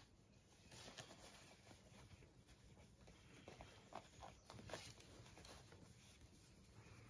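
Near silence, with faint soft rustling and scratching as puppies shuffle on a fleece blanket and a hand strokes them.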